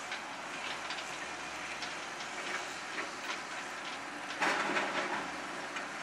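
JCB backhoe loader's diesel engine running as the machine drives over rough ground, with steady rattling and clanking from the machine and its loaded bucket. A louder burst of clattering comes about four and a half seconds in.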